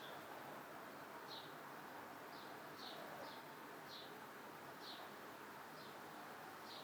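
A small bird chirping repeatedly, short high chirps about every half second to a second, over faint steady outdoor ambience.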